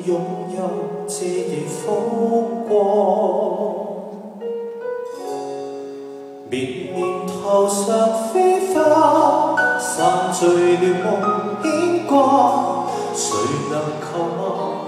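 Live concert music: a slow ballad with piano and a singing voice holding long, wavering notes. It dips quieter around the middle, then swells back.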